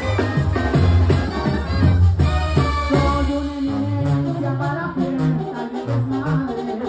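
Mexican banda playing live: brass horns, a bass line and drums, with a male singer over the band.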